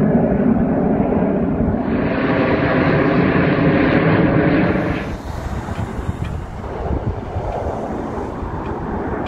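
A formation of Snowbirds CT-114 Tutor jet trainers flying overhead, a loud steady jet rumble that drops off about five seconds in as the formation pulls away.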